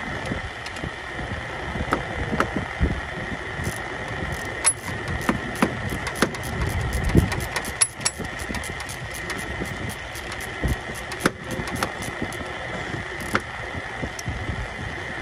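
Hand ratchet clicking in quick runs while a mounting bolt of a replacement A/C compressor is run down and tightened, with metal tool knocks. It is heard over steady workshop noise with a constant high whine.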